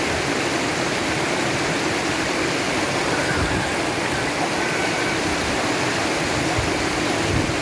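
Shallow river rapids rushing and splashing over boulders, a steady, unbroken wash of water.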